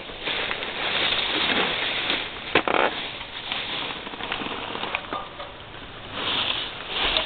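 Cut tree limb with its leaves rustling and scraping as it is dragged across the roof by rope, with irregular crackles and a sharper knock about two and a half seconds in.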